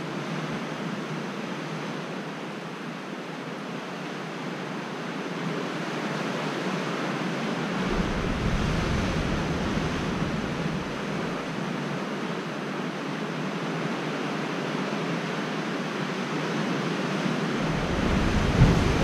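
Steady wash of sea surf, with wind buffeting the microphone in low rumbling gusts about eight seconds in and again near the end.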